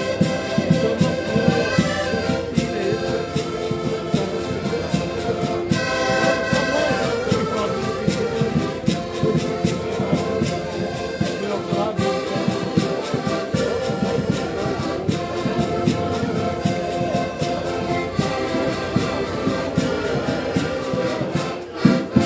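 Several accordions playing a Portuguese folk tune together in held chords, with a bass drum beating time. A brief sharp knock near the end.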